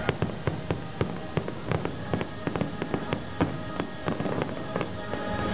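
Aerial fireworks going off in quick, irregular bangs and crackles, several a second.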